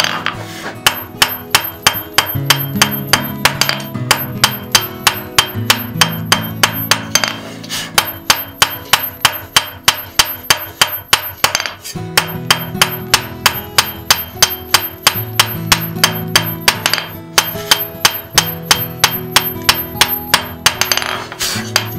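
Hand hammer striking a glowing wrought iron bar on an anvil, forging a square chopstick blank. The blows come at a steady pace of about three a second with a few short breaks, and each one rings.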